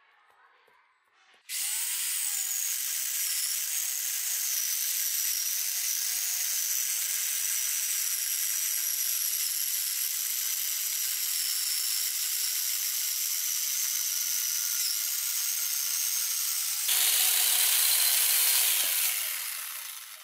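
Angle grinder fitted with a chainsaw adapter, its chain sawing through a log. It starts abruptly about a second and a half in as a loud, steady high-pitched whine, grows louder for a couple of seconds near the end, then dies away.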